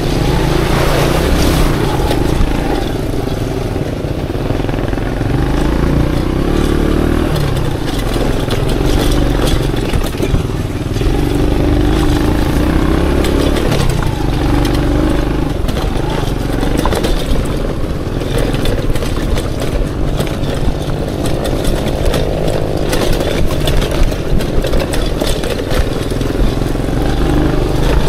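Aveta Ranger Max motorcycle engine running as the bike is ridden, its note rising and falling with the throttle. Frequent short knocks and rattles come through over it, thickest in the second half.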